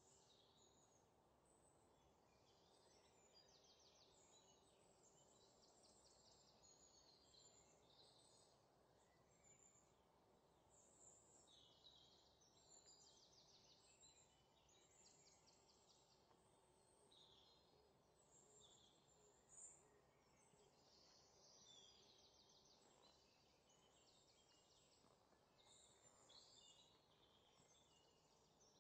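Near silence, with faint birds chirping and trilling in the background over a low hiss.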